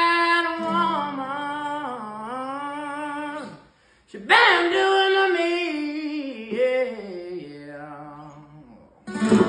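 Country-style singing with long held notes and vibrato over acoustic guitar. Two long phrases, with a short break about three and a half seconds in.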